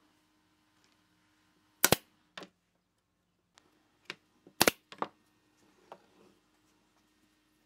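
Sharp wooden knocks of pine boards being set down and fitted against a box on a wooden workbench: two loud double knocks about three seconds apart, with a few lighter taps between and after.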